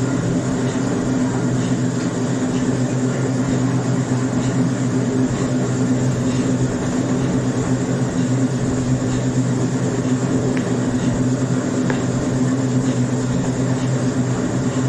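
Loud, steady machine hum with a low drone, like a motor-driven fan or blower running continuously, cutting off suddenly at the end.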